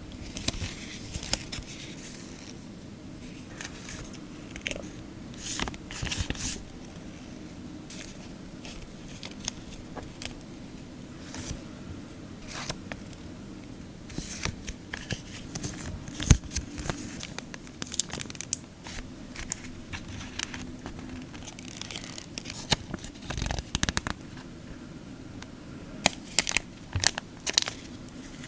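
Stationery packaging being handled and opened: crinkling plastic sticker packets and rustling paper, with scattered taps and clicks. There is a sharp tap about halfway through and a cluster of taps near the end.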